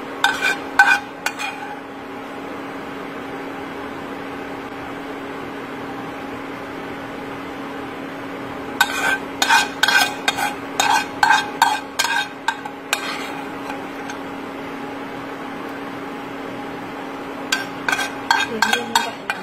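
A metal spoon clinking and scraping against a frying pan and a plate as sauce is spooned out, in three bursts of quick ringing clinks, over a steady low hum.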